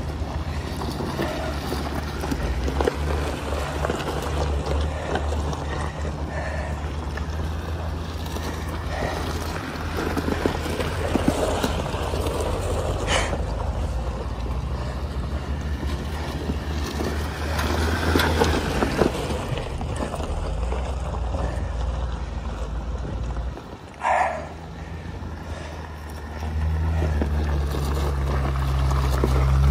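Jeep Wrangler engine running under load on a rough dirt trail, with knocks and rattles over the terrain. The engine note drops off about three-quarters of the way through, then climbs and grows louder near the end as it pulls uphill.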